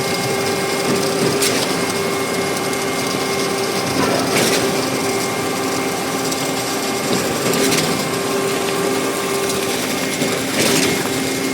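Concrete boom pump running steadily, with a steady hum and a high whine. A sharp clack comes about every three seconds, four times, as the pump changes stroke.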